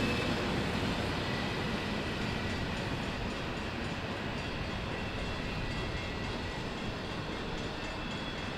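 Freight cars of the CSX M426 train rolling past over the rails: a steady rumble of wheels on track, slowly fading.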